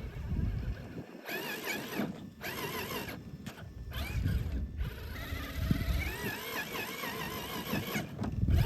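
Axial SCX6 RC crawler's electric motor and geared drivetrain whining in spurts, the pitch wavering up and down as the throttle is worked, with short breaks between spurts. The truck is straining to climb a ledge and is hung up on a rock.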